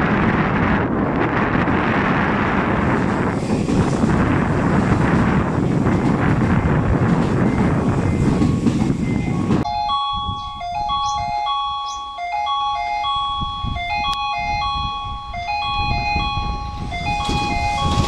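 Strong wind buffeting the microphone for the first half. It then gives way abruptly to a simple electronic melody of clear, chime-like notes. Near the end, the rushing noise of the approaching electric express train rises under the melody.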